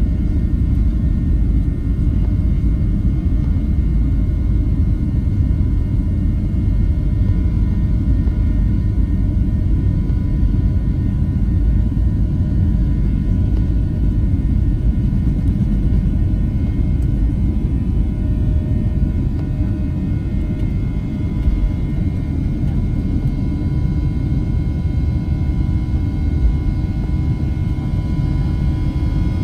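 Cabin noise inside a Boeing 737-700 with its CFM56-7B jet engines running: a loud, steady low rumble with a few faint steady whining tones above it.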